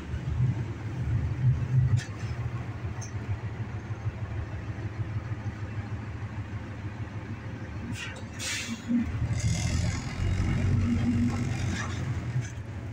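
A transit bus's engine running, heard from inside the cabin as a low rumble that swells at the start and again after about nine seconds. A short hiss of air comes about eight seconds in.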